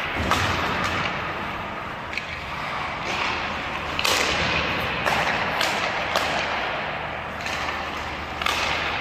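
Ice skate blades scraping and carving the rink ice in repeated strides, a hard-starting hiss roughly once a second, with a few sharp clicks of a hockey stick on the puck.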